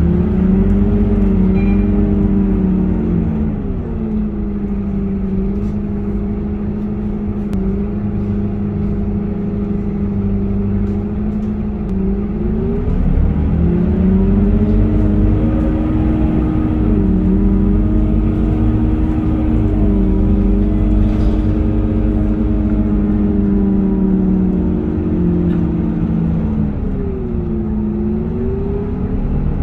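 Scania K230UB city bus's diesel engine heard from inside the passenger cabin while the bus is under way. The engine note drops a few seconds in, holds steady, climbs again about halfway through as the bus accelerates, and falls once more near the end.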